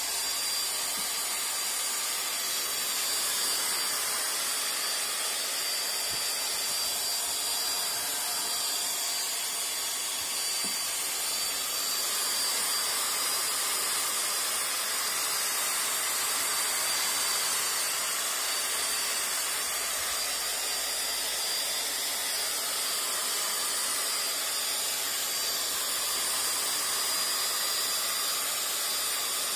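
A power tool spinning a buffing pad to polish a plastic headlight lens with toothpaste. It runs steadily, a hiss with a thin high whine, its tone swelling and easing slowly.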